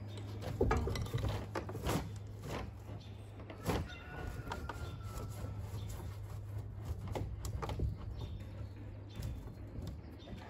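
Scattered knocks and scrapes of a wooden rim joist being worked into place with a pry bar on top of an ICF wall, over a steady low hum.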